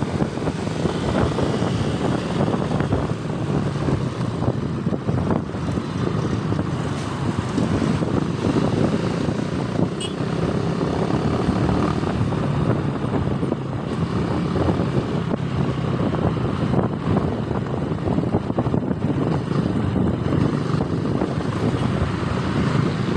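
Motorcycle engine running steadily while riding in traffic, mixed with a haze of wind and road noise, heard through a helmet-mounted phone's microphone.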